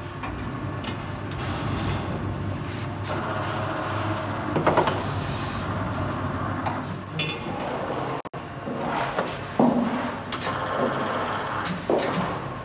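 Metal knocks, clatter and scraping from a cattle hoof-trimming chute being worked, over a steady low hum.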